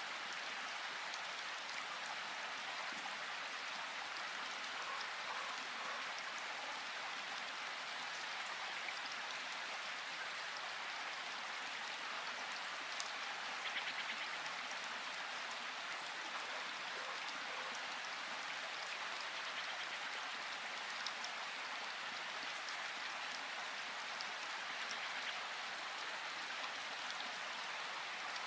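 Steady rushing water of a river or waterfall, an even hiss, with a brief higher sound about halfway through.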